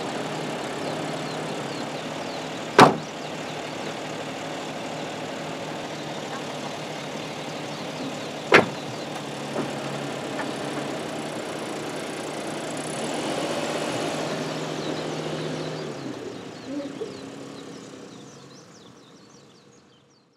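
A Suzuki Every kei van's engine running steadily, with two loud door slams about three seconds and eight and a half seconds in. The sound fades out near the end.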